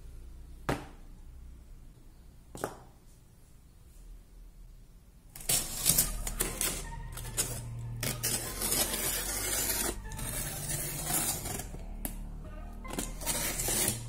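Utility knife blade slicing along the packing-tape seam of a cardboard shipping box, a dense scratchy run of cutting and tearing strokes that starts about five seconds in. Two sharp clicks come before it.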